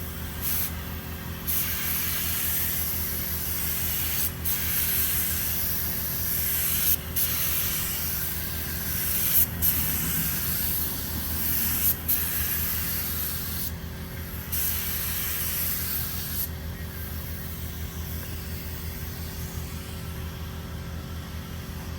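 Compressed-air paint spray gun hissing in long passes, cutting off briefly several times between them, over a steady low hum.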